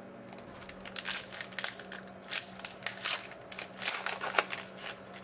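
Hockey card pack wrapper being torn open and crinkled by hand: an irregular run of crackling crinkles.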